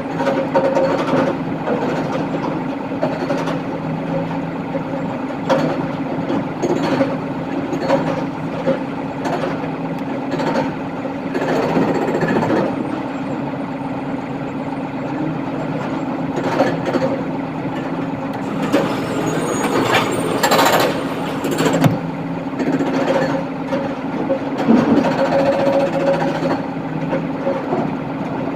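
Diesel excavator engine running steadily while it loads a dump truck, with repeated knocks and clanks of the bucket and rock. There is a louder rushing burst about twelve seconds in and another, the loudest, around twenty seconds in.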